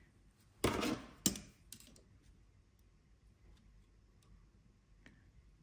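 A brief metallic scrape and then two sharp clicks as a steel rule and the depth stop of a metal plough plane are handled and set against each other, with a few faint ticks near the end.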